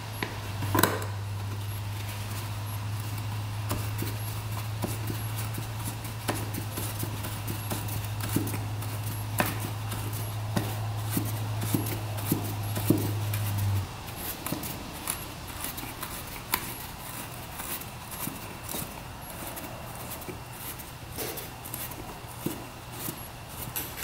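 Scattered light clicks and taps as a new oiled foam air filter on its cage is worked by hand into a Honda CR125's airbox. A steady low hum underneath cuts off about fourteen seconds in.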